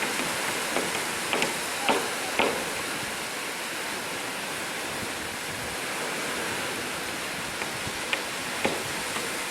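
Black Sea surf washing steadily on the shore, with a few short sharp crackles about one and a half to two and a half seconds in and again near the end.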